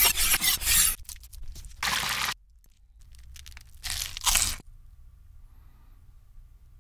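Crisp crunching of bites into breaded fried chicken, in short bursts: a quick cluster at the start, one about two seconds in, and two close crunches about four seconds in.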